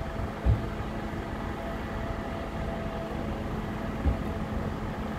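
An engine idling with a steady hum, with two short low thumps, about half a second in and about four seconds in.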